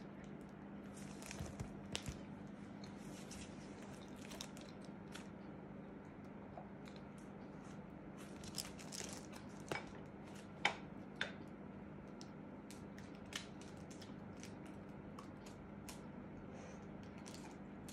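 Scattered faint crinkles, crunches and clicks from a child biting a wafer ice-cream cone and handling a photo album's plastic-covered pages, a few sharper clicks coming about two seconds in and again around the middle, over a steady low hum.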